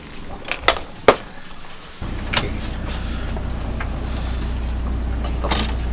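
A few sharp clicks and knocks, then, about two seconds in, a sudden switch to a fishing boat's engine running with a steady low drone, heard inside the wheelhouse.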